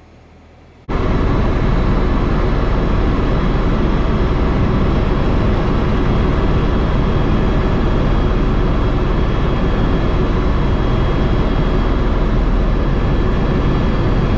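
Helicopter in flight, heard loud from inside the cabin: a steady engine and rotor noise with several steady whining tones. It starts suddenly about a second in after a quiet stretch.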